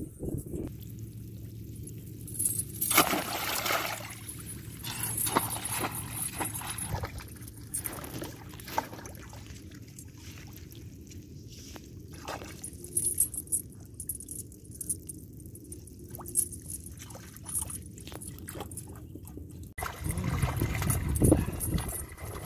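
Water splashing and sloshing in a shallow pond as a bait on a metal chain is dipped and jerked about. About 20 s in, a sudden louder stretch of heavy splashing as a fish thrashes at the bait.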